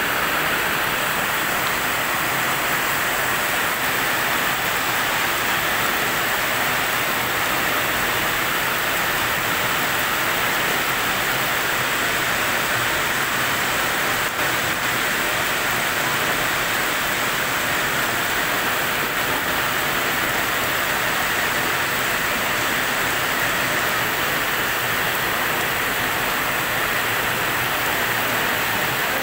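Heavy rain falling steadily onto a swimming pool and its concrete deck, an even hiss that doesn't change.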